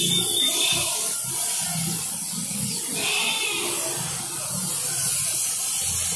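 Compressed-air spray gun hissing steadily as it sprays the final finish coat onto a carved wooden door.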